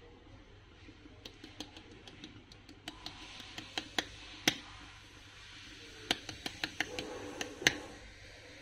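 Irregular sharp clicks and taps, sometimes several a second, with the two loudest about four and a half and seven and a half seconds in.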